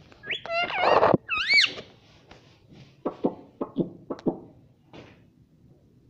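Indian ringneck parakeet calling: a few short, bending whistled squawks in the first second and a half. These are followed by a series of about six sharp taps and knocks.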